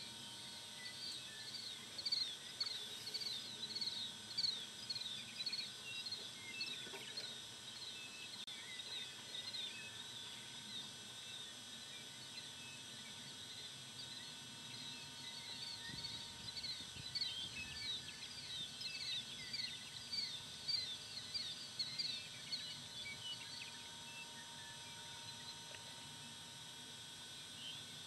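Birds chirping in rapid runs of short, high, falling chirps, coming in bouts and fading out near the end, over faint steady outdoor background noise.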